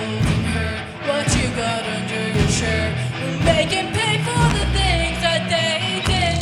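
Youth rock band playing live: sung lead vocal over electric guitars, bass and a steady drum beat.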